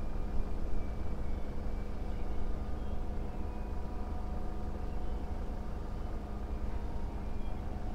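Clyde-built diesel-electric locomotives of a freight train running as the train reverses: a steady low engine drone with several held tones over it.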